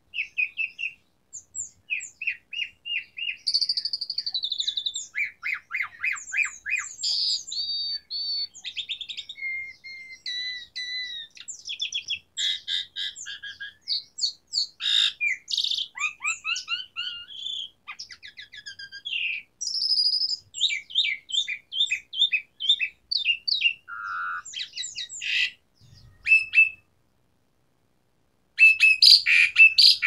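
Asian pied starling singing a long, varied song of trills, fast repeated notes and gliding whistles. It breaks off for a couple of seconds near the end, then bursts into loud, dense calls.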